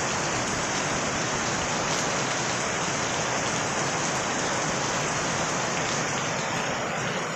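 Steady rain falling and pattering on the ground, an even hiss that does not let up.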